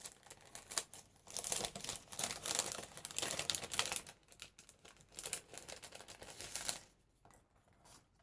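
Paper ephemera rustling and crinkling as it is handled and pulled out of a pocket of a handmade box, in irregular bursts that die away about seven seconds in.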